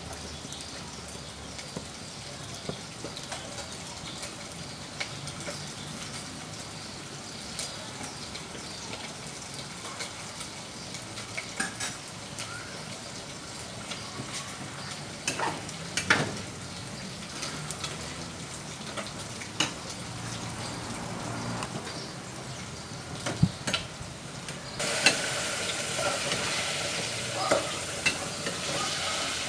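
Firewood burning in a wood-fired cook stove: a steady hiss broken by scattered sharp crackles and pops, a few louder than the rest. About 25 seconds in the hiss grows suddenly louder and brighter.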